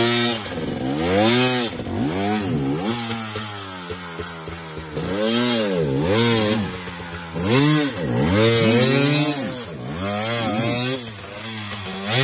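KTM enduro motorcycle engine revved hard in repeated blips, its pitch rising and falling about once a second, as the bike is worked up a steep mud climb.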